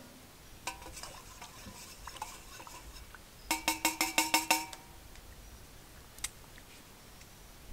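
Wooden spoon stirring coffee in a small metal cup. There are light clinks and scrapes at first, then a quick run of about eight knocks against the cup a few seconds in, each ringing briefly.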